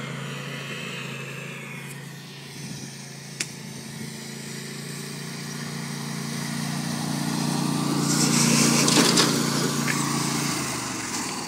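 John Deere LA145 riding mower's 22-horsepower engine running steadily as the mower drives around. It grows louder to a peak about eight to nine seconds in, with a brief rush of hiss, then fades near the end. A single sharp click comes about three seconds in.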